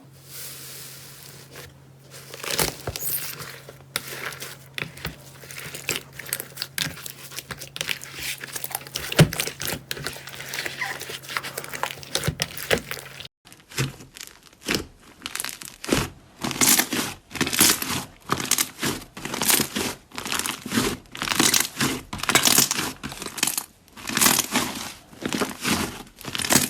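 Slime being squeezed and poked by hand close to the microphone, giving dense crackling and crinkling. About halfway through the handling changes to louder, regular squeezes, roughly one or two a second.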